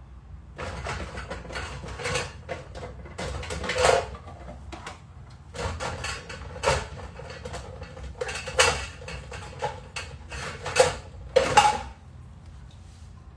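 Kitchen utensils clattering while tiger nut milk is strained: a blender jug, a strainer and a bowl are handled and knocked together, with a run of clinks and knocks carrying a short ring. The loudest knocks come near the end.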